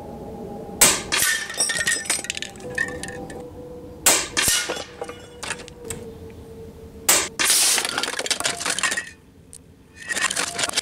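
Air-rifle pellets striking metal cans and trophies: three sharp cracks about three seconds apart, each followed by clinking and clattering as struck items shift or fall. Stretches of hissing noise come in near the end.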